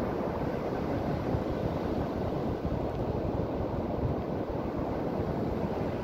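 Ocean waves breaking offshore and washing up a sandy, pebble-edged beach: a steady rush of surf with no distinct single breaks.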